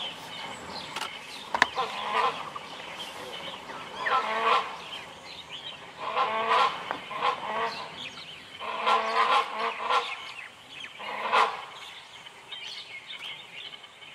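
A great hornbill pair calling in unison: loud barks in about five bursts of a second or so, coming every two to three seconds.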